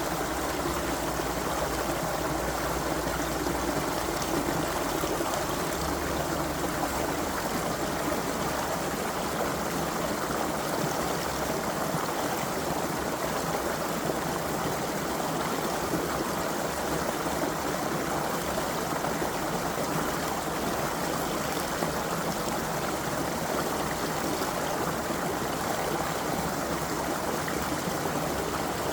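A creek's water running steadily over stones, an even, continuous rushing.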